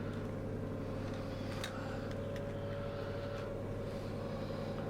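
A steady electrical hum with a few faint light clicks.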